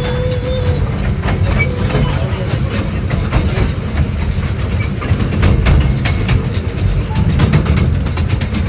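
Ride on a miniature railway train: a steady low rumble with the clatter and knocking of the carriages' wheels over the track.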